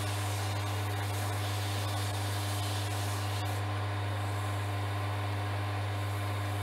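Axminster Craft wood lathe running at a steady speed, its motor giving a constant hum. A fine hiss of the spinning olivewood pen blank being sanded with 3000-grit paper stops suddenly about three and a half seconds in.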